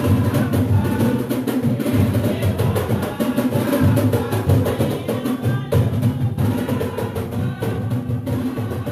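Garifuna drum music: hand drums playing a steady, fast, dense beat.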